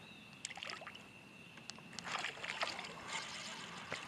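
Faint sloshing and small splashes of water from a hooked largemouth bass being fought on a rod at the bank. A faint steady high whine runs through the first two seconds.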